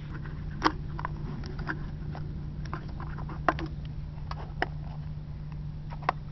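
Hands handling a plastic lid and a latex balloon, giving irregular small clicks and taps of plastic, the sharpest about a second in, mid-way and near the end, over a steady low hum.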